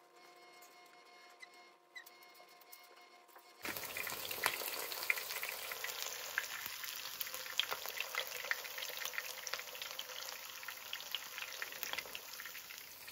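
Flour-coated chicken thigh pieces shallow-frying in oil in a pan: a steady sizzle with many small crackles and pops, starting abruptly about four seconds in after a faint, quiet stretch.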